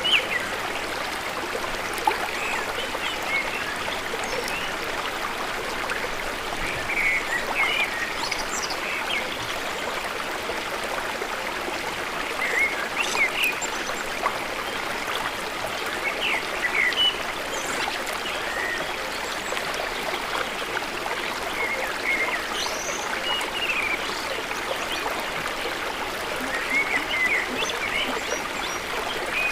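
Water running or trickling steadily, with short bird chirps here and there.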